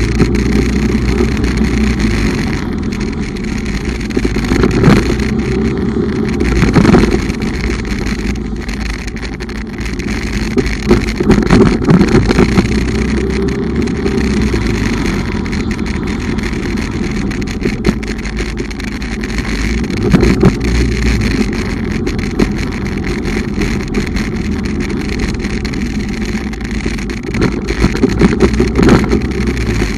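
Bumoto Regnum motorcycle under way: steady engine and riding noise, heaviest in the low end, swelling louder several times.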